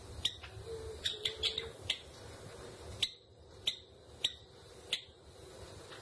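Java sparrow giving short, sharp chip calls, about nine of them at irregular intervals, some in quick clusters.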